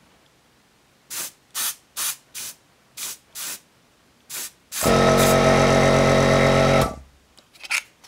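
Airbrush spraying matte acrylic varnish in seven short hisses, then a small air compressor's motor runs with a steady hum for about two seconds and cuts off. Faint handling noises near the end.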